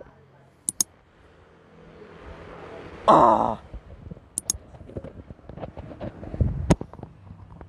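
A person's groaning sigh: one loud, half-second moan about three seconds in, with a few sharp clicks around it.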